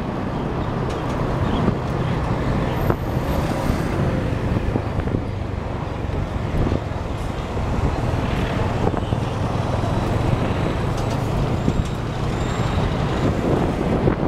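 Motorbike engine running at a steady cruise, with wind and road noise and the hum of surrounding traffic.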